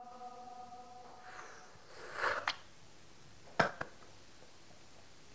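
The last held note of a sung azan (Islamic call to prayer) fades out in the first second. Then a quiet small room, with a short breathy rush of noise about two seconds in and a single sharp tap a little over a second later.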